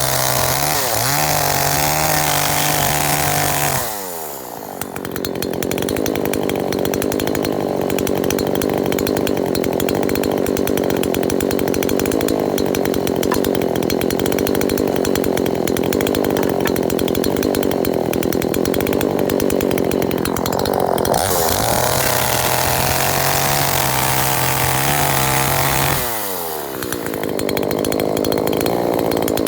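TCS42X-16SN 39.6 cc two-stroke gasoline chainsaw held at high revs, dropping to idle about four seconds in. It is revved up again about three quarters of the way through and dropped back to idle near the end.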